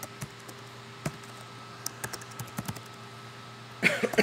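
Typing on a computer keyboard: a scattered handful of light key clicks, with a louder cluster of clicks near the end. A steady faint electrical hum runs underneath.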